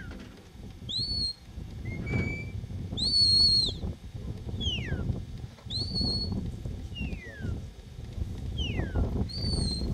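Sheepdog handler's whistle commands to a working border collie: a run of about eight short, shrill whistle notes, some rising and falling, some sliding downward, with the longest and loudest about three seconds in.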